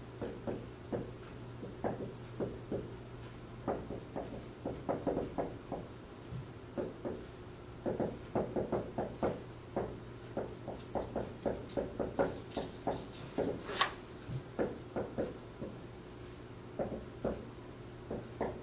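Marker writing on a whiteboard: a quick run of short squeaks and scratches, one per stroke of the handwriting, with a pause about halfway through, over a steady low hum.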